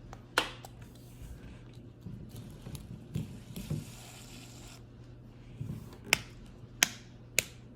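Dimple fidget toy being handled and pressed, giving sharp single clicks: one near the start and three in quick succession near the end, with soft handling rustles in between.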